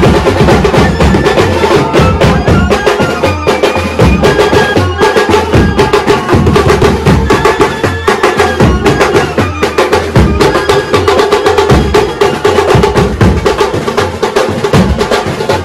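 A Koli brass band playing a lively folk tune: saxophones and trumpets carry the melody over bass drums beaten with mallets in fast, dense strokes.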